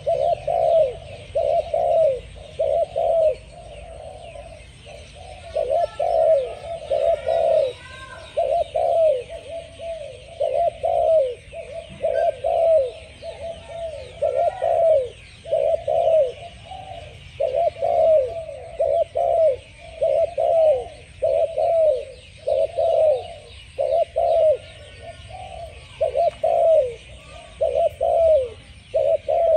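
Spotted dove cooing over and over: short low coos in bursts of two to four, repeated every second or two. Faint high chirping runs in the background.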